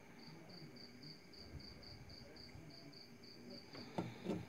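A cricket chirping steadily at about four chirps a second, faint, with a few soft taps near the end.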